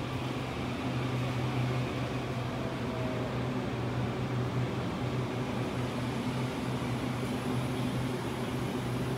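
Taiwan Railways EMU900 electric train at the platform, its equipment giving a steady low hum with fan-like noise.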